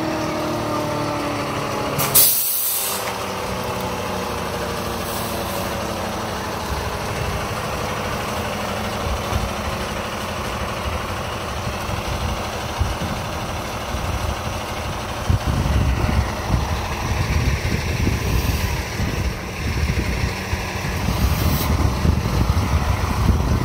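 Fire truck's diesel engine note falling as it slows to a stop, then a short, sharp hiss of the air brakes being set about two seconds in. The engine then idles steadily, with low, uneven buffeting on the microphone in the second half.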